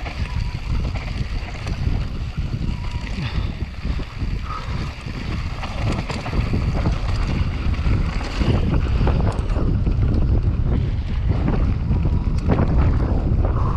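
Wind buffeting the microphone on a downhill mountain bike at speed, over the tyres rolling on loose dirt and gravel. Frequent rattles and knocks come from the bike over the bumps. The noise grows louder about halfway through as the pace picks up.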